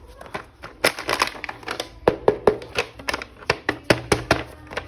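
Quick, irregular plastic clicks and taps as a toy action figure and its parts are handled.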